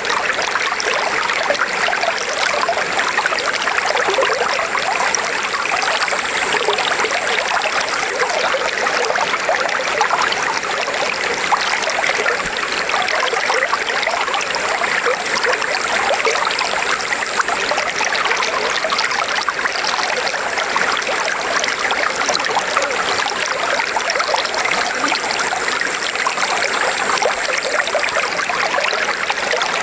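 River water flowing steadily over rocks, a continuous splashing and trickling.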